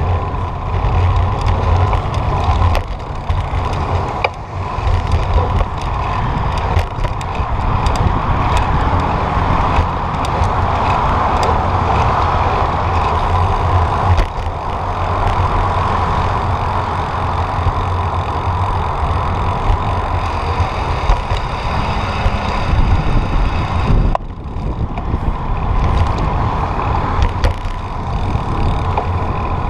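Wind rushing and buffeting over the microphone of a camera on a moving road bicycle, a steady low rumble with frequent short thumps, mixed with road noise from motor traffic going by.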